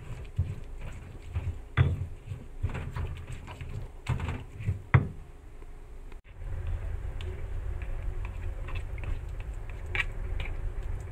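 Stone pestle grinding and knocking a wet spice paste in a stone mortar, with irregular scrapes and knocks. About six seconds in the sound changes to a steady low hum with a few light scrapes.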